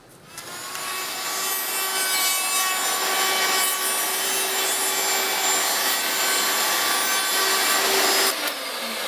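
Electric router riding on a wheeled carriage along a metal planing form, milling a bamboo fly-rod strip: a steady high motor whine over the cutting noise of the bamboo. It starts just after the beginning, is switched off near the end and winds down with a falling whine.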